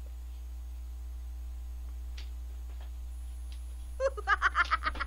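Steady low electrical mains hum. About four seconds in comes a quick, loud run of about eight short pitched squeaks.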